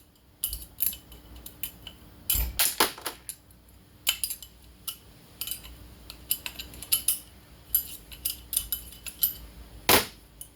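Irregular metal clinks and knocks as a ball bearing's outer race is broken off a chainsaw crankshaft with hand tools, with a couple of heavier strikes about two and a half seconds in and one near the end.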